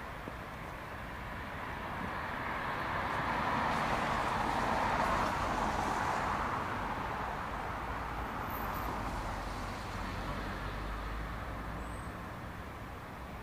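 A vehicle driving past: tyre and road noise that swells to its loudest about five seconds in, then slowly fades away.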